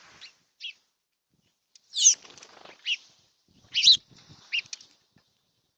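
Birds at a feeder: a few short, sharp, sweeping chirps, the loudest about two and four seconds in, with wing flutter between them.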